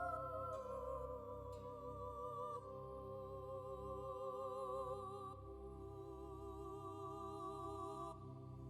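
Background music: a slow, sustained melody with vibrato, held notes changing every second or two.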